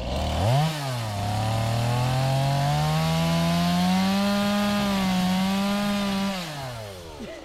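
Small two-stroke engine on a handheld power tool revved up, running hard with its pitch slowly climbing and holding high for several seconds, then dropping back toward idle near the end.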